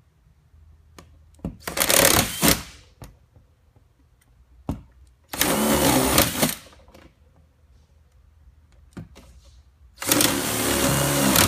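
Electric drill with a large bit boring through the plastic tub wall, run in three short bursts of about a second each with pauses between.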